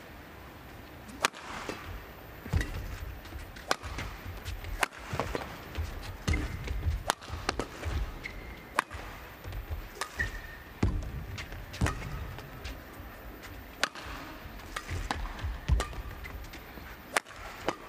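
Badminton rally: racket strings striking a feather shuttlecock about a dozen times, one crisp smack every second or two, traded back and forth between two players.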